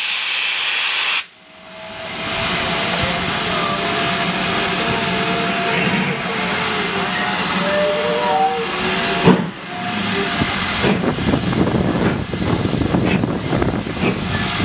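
Steady loud hiss of steam from a steam train pulling out along a platform, with faint higher tones wavering through it. The sound drops out sharply twice, about a second in and again partway through just after a click.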